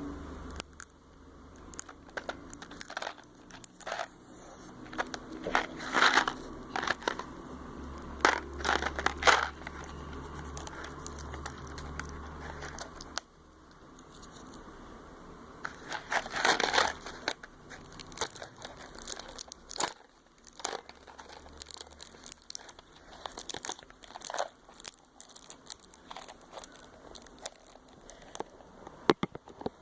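Plastic and cardboard packaging of a Bean Boozled jelly bean box crinkling and rustling in irregular bursts as it is handled and opened, with louder crinkles now and then. A low hum runs under the first half.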